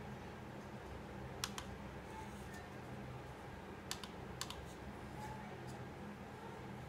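Computer mouse clicks: a quick pair about one and a half seconds in and three more around four seconds in, over a steady low hum.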